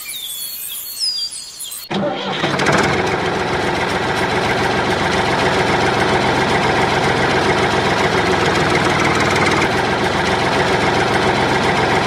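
An engine starts about two seconds in, then runs steadily.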